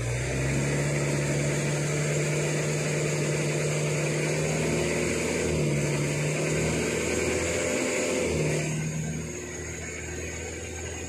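A palm-oil truck's diesel engine runs steadily at a held, raised speed, then eases off about nine seconds in, while its winch cable is being run out for a pull through the mud.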